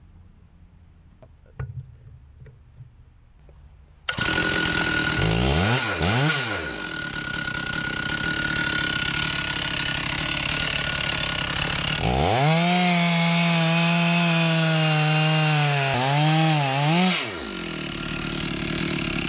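A few faint clicks, then about four seconds in a Stihl chainsaw on a Granberg Alaskan chainsaw mill starts up loud at high revs and runs on milling through a walnut log, its engine pitch dipping and rising several times.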